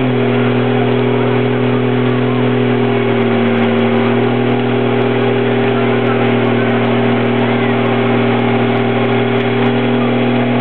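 1999 Dodge Ram pickup's engine held at steady high revs during a burnout, with the rear tyres spinning on the spot under a thick cloud of tyre smoke. The revs step up slightly right at the start and then hold level.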